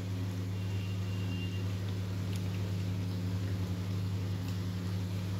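A steady low mechanical hum, with a few faint pops from chicken curry bubbling in the pan.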